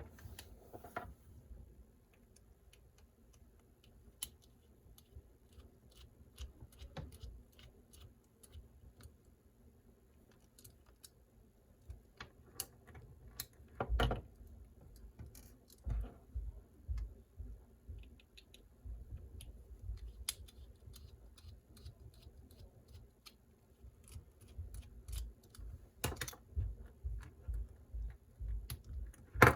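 Scattered light clicks, taps and small knocks of tiny plastic and metal parts being handled and worked on a mini RC truck chassis as the motor cover is taken off, with a sharper knock about 14 seconds in and busier clusters of taps near the end.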